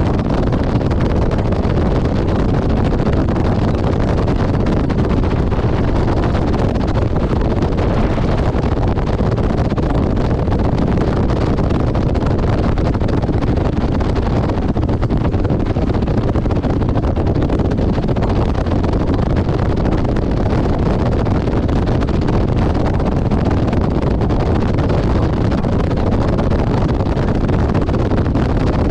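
Steady wind rush over the microphone mixed with the drone of a motorcycle cruising at a constant highway speed. The sound is unchanging throughout, with no gear changes or revs.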